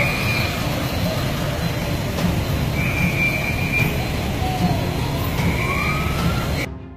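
Street noise on a flooded road: a steady low rumble of vehicles and water, cut by a high, steady tone that sounds three times, about a second each, and a short rising tone near the end.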